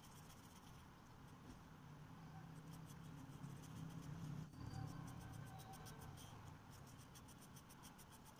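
Felt-tip highlighter marker rubbing on paper in faint, quick back-and-forth colouring strokes.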